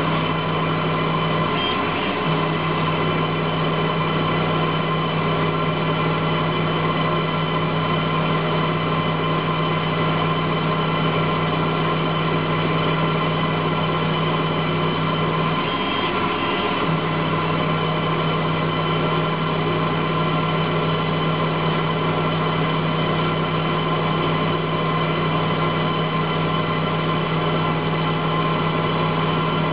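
Emco Turn 120 CNC lathe running while machining a metal part: a steady machine hum with several fixed tones. The low hum drops out briefly twice, about two seconds in and about halfway through.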